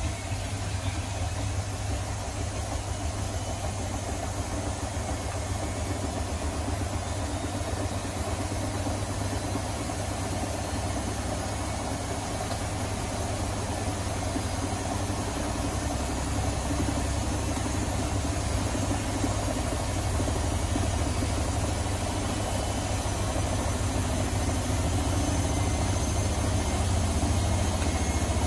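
Electra Electronic 1100 front-loading washing machine running with a steady low motor hum, which grows slowly louder.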